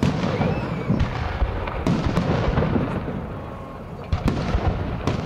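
Fireworks display: aerial shells bursting in quick succession, a run of sharp bangs over a continuous low rumble and crackle. The bangs ease off about three seconds in, then pick up again with a loud bang a little after four seconds.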